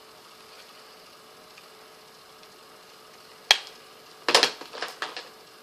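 Sharp click of a plastic eyeshadow palette case about three and a half seconds in, then a quick run of plastic clicks and clatter as palettes are handled, over a faint steady hum.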